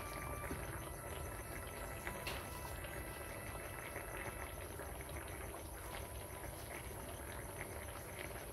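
Fish soup bubbling in a wok over a gas burner, with small scattered pops and clicks over a steady low rumble.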